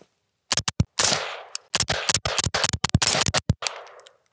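Rapid fire from a 5.56 AR-style rifle through a B&T SRBS 5.56 reduced-back-pressure suppressor: about fifteen quick suppressed shots in uneven strings, starting about half a second in. A rushing echo trails off after each string.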